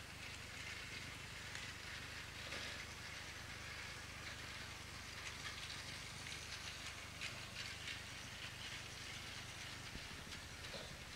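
Plarail toy train, a Thomas the Tank Engine locomotive, running on plastic track: its small battery motor whirring steadily, with light clicks from the wheels and coaches over the track joints.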